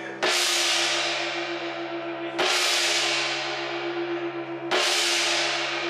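Hand-held ship's gong (dora) struck with a mallet three times, about two seconds apart, each stroke ringing out and slowly fading: the traditional gong rung aboard a Japanese ferry to signal departure.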